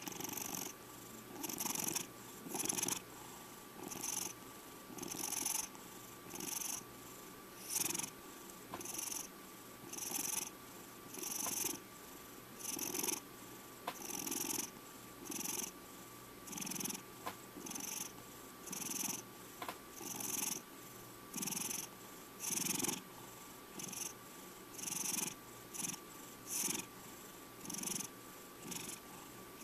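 Domestic cat purring close up, the purr swelling and fading with each breath in an even rhythm a little over once a second.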